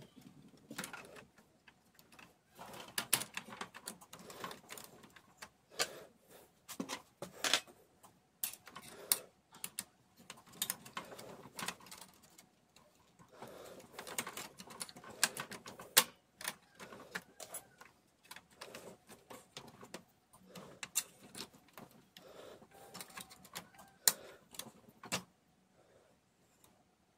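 Plastic gears and parts of a laser printer's drive gear train being worked loose by hand against the metal side frame. Irregular sharp clicks and clatter with handling noise between them, stopping shortly before the end.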